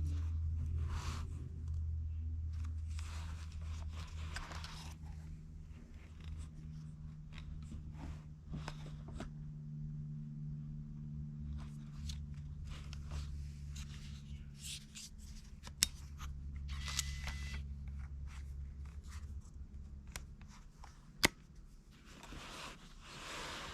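Hands handling packaging and small objects: bursts of rustling and crinkling with a few sharp clicks, over a steady low hum.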